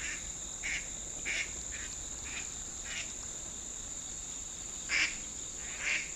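A duck quacking in a run of short calls, two of them louder near the end, over a steady high insect drone.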